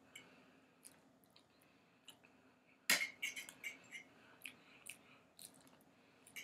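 Faint eating sounds: a fork working food off a plate and quiet chewing with soft mouth clicks. The loudest is a sharp click about three seconds in, followed by a run of short ticks and smacks.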